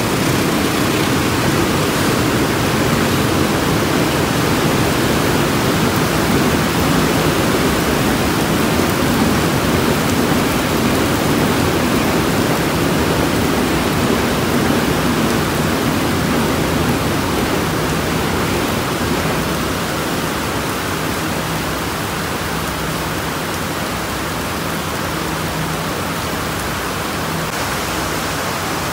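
Steady rain falling, a constant even hiss that eases a little about two-thirds of the way through.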